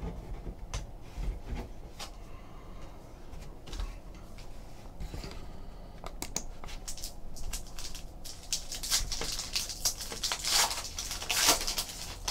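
Trading cards handled with light clicks and taps, then a foil trading-card pack crinkling and tearing open by hand. The crinkling is loudest near the end.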